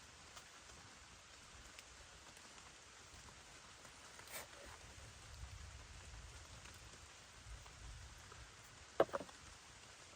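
Light, steady rain falling, with scattered faint drip ticks. A sharp double tap near the end is the loudest sound.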